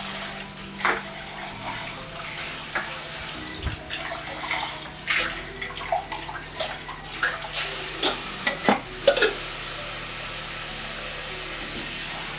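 Kitchen tap running steadily while pots and pans are washed, with scattered clinks and knocks of cookware and a cluster of sharper clatters about eight to nine seconds in.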